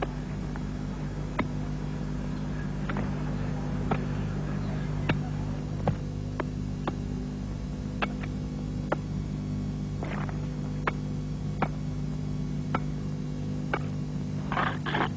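Steady low hum with irregular sharp clicks, and near the end a quick run of short scraping strokes.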